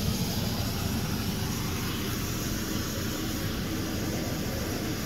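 Newly installed RV rooftop air conditioner running, its blower pushing air hard: a steady rush of air with a low hum underneath.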